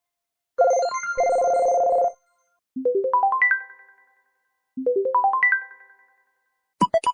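LG LX290 mobile phone playing its built-in electronic ringtones: a buzzy two-tone beep, then a quick rising run of notes that plays twice and fades each time. A busier tune starts just before the end.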